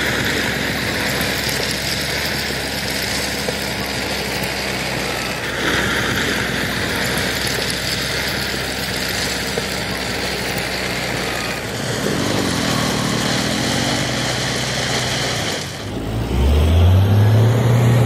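A farm tractor's diesel engine runs steadily while its front blade pushes crushed stone, and the gravel crunches and rattles. Near the end an engine revs up sharply, and this is the loudest part.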